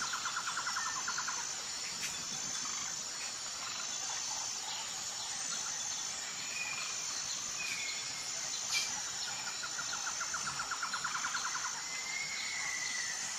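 Outdoor insect and bird ambience: a steady high insect drone, with two rapid bird or insect trills, one near the start and one about ten seconds in, and a few short chirps. A single knock sounds about nine seconds in.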